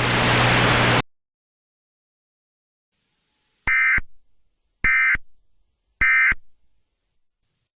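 A loud hiss of noise cuts off abruptly about a second in. After a pause come three short, identical warbling data bursts about a second apart: the Emergency Alert System's end-of-message (EOM) tones, which mark the close of the alert.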